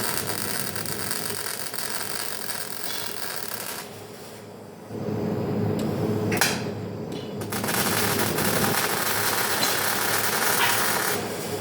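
MIG welding arc crackling and hissing in runs of a few seconds, with a short break about four seconds in and another brief one past the middle.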